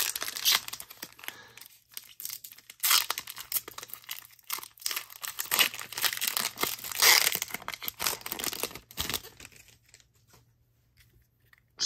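A Disney Lorcana booster pack's foil wrapper being torn open by hand, crinkling and tearing in irregular bursts that die away near the end.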